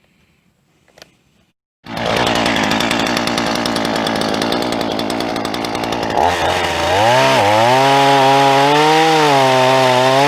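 A power saw starts abruptly about two seconds in and runs loud. From about six seconds its motor note turns into a clear tone that dips and rises in pitch.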